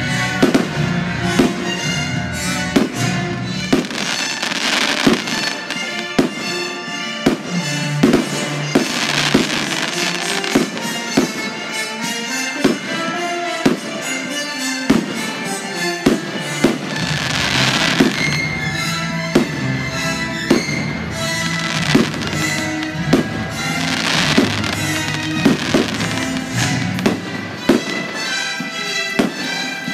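Aerial firework shells going off in quick, irregular bangs, with spells of dense crackling, over music that plays throughout.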